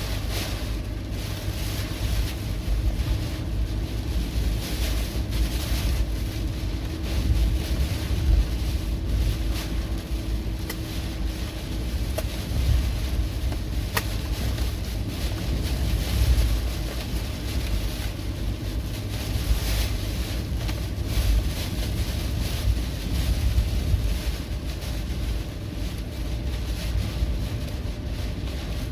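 Gusty wind from an approaching typhoon buffeting the microphone: a steady low rumble that swells and eases with the gusts.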